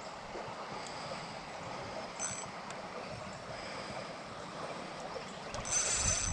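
A large bass being fought on an ultralight spinning rod and reel: steady background hiss of wind and water, with two short high-pitched sounds from the reel, a faint one about two seconds in and a louder one near the end.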